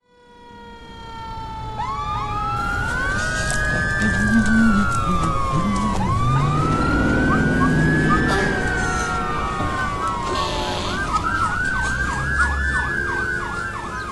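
Emergency vehicle sirens wailing, several overlapping with slow rising and falling pitch, switching near the end to a fast yelp of about three cycles a second.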